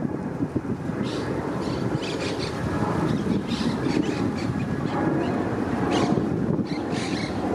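Jet engines of a climbing Boeing 777 freighter, a steady low rumble mixed with wind buffeting the microphone.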